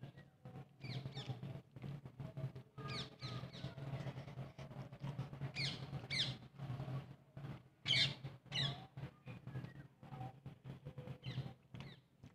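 Wet chewing and lip-smacking of someone eating rice and curry by hand, over a steady low hum. Several short, high, falling bird chirps come in bunches, the loudest about eight seconds in.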